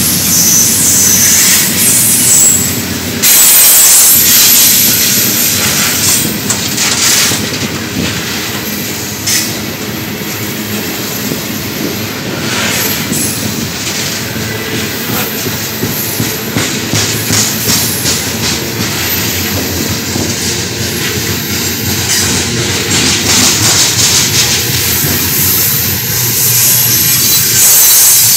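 Freight train of open-top hopper cars rolling past close by: a continuous rumble of steel wheels on rail with repeated clicks. There is a high wheel squeal in the first few seconds.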